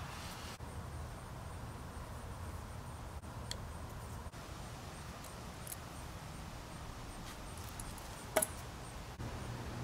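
Steady low background hum with a few faint light clicks, and one sharper click about eight seconds in.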